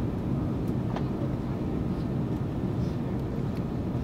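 Steady low rumble of engine and airflow noise inside an Airbus A330's passenger cabin on descent.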